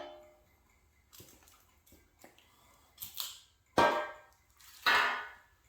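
Metal parts or tools clanking during an engine teardown: a few light knocks, then three sharp metallic clanks in the second half, each ringing briefly.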